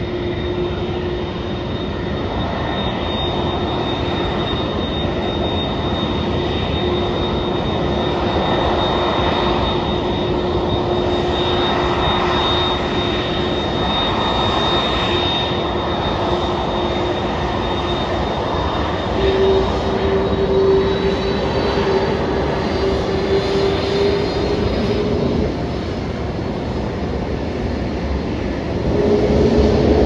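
Airbus A300F4-605R's twin General Electric CF6-80C2A5 turbofans running at low thrust while the freighter taxis, a steady jet noise with a held whine. About twenty seconds in the whine steps up in pitch, and near the end the sound grows louder as the engines begin to spool up.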